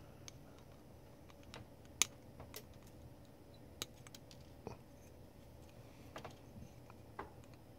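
Small flush cutters snipping the wire leads of soldered through-hole components on a circuit board: a handful of faint, sharp clicks, the loudest about two seconds in.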